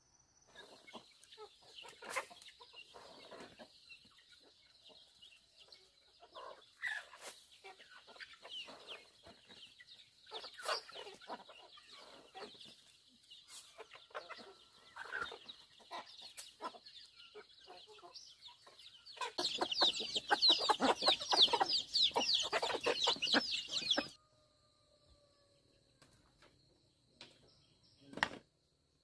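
A flock of chickens clucking and calling while they are fed. About two-thirds of the way in, a louder stretch of rapid calls runs for about four seconds and then stops abruptly.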